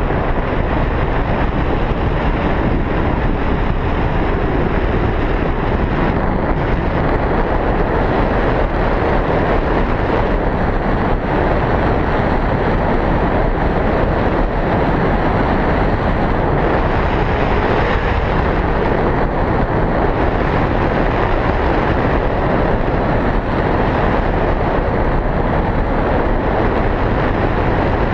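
Steady rush of wind over the microphone of a pole-mounted camera in tandem paraglider flight, a constant loud noise with no break.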